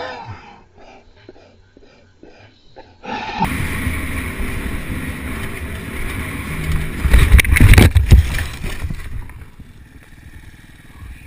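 Dirt bike ridden on a dirt trail heard through an on-board camera, engine and wind noise on the microphone, starting suddenly about three and a half seconds in. Around seven to eight seconds in come loud thuds and crashing as the bike goes down in the dirt, after which the sound drops to a quieter level.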